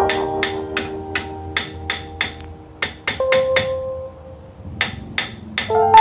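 Rapid metal-on-metal blows on a Toyota HiAce rear brake drum assembly, each strike leaving a clear ringing tone. The hits come in quick runs of about four a second, with brief pauses about two and a half and four seconds in.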